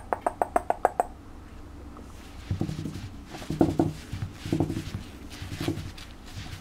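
A rapid run of about eight clicks in the first second, made to call a young puppy, then the puppy making a few short, low grunts as it plays and scrambles on a fleece blanket.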